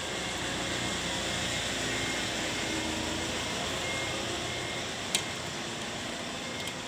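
Steady background hiss, with one sharp click about five seconds in and a fainter one near the end, from a pocketknife screwdriver working a small screw into a steamer tray's handle.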